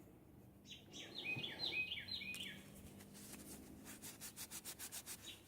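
A bird singing a quick run of short, down-slurred whistled notes, followed by a faint, rapid series of clicks or rubbing strokes at about five a second.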